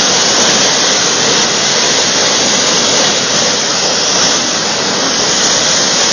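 Floodwater gushing up out of an open storm-sewer manhole in a loud, steady rush of spray. The plugged, overwhelmed storm sewer is under pressure, forcing the muddy water up as a fountain.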